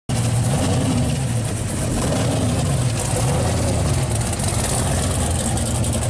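Supercharged V8 of a blown pro street 1970 Chevy Nova running steadily at low revs as the car rolls slowly past.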